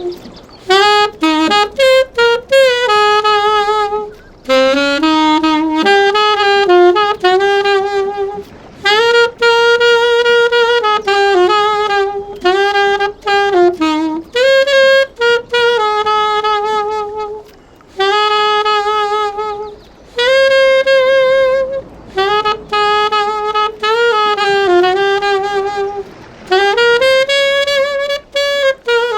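A solo saxophone playing a slow melody: long held notes with pitch slides and vibrato, separated by short breaths between phrases.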